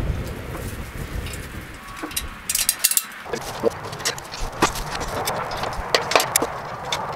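A low rumble, then, from about three seconds in, irregular sharp metal clicks and clinks of pliers, nuts and bolts being handled as hardware is fastened to a chicken plucker's metal base.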